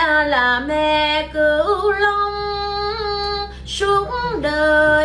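A woman singing a slow Vietnamese song, holding long notes and sliding between pitches.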